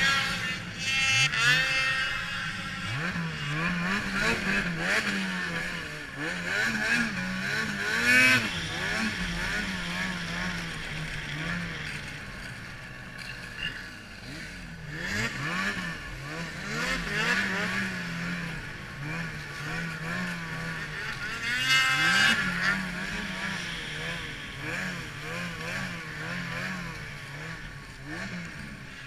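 Ski-Doo 800 E-TEC two-stroke snowmobile engine revving up and down again and again as the sled is ridden through snow, with a steady rush of wind over the microphone.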